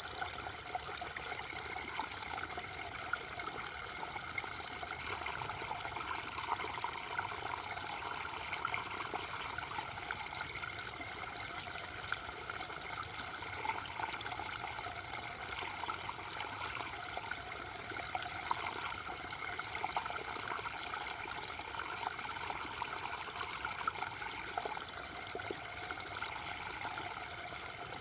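Waterfall: water falling and splashing in a steady, unbroken rush with fine spatter, gentle rather than thundering.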